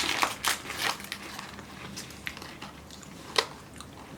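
Close-up crunching and chewing of thin strawberry cream Oreo cookies: irregular crackly crunches, densest in the first second, with one sharp crunch about three and a half seconds in.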